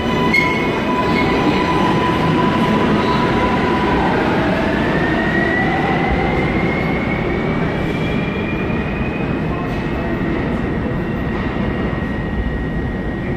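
New York City subway train accelerating out of the station: a rising electric whine from its traction motors over the steady rumble of wheels on rail. A held tone for about four seconds gives way to a climbing pitch that levels off near the end.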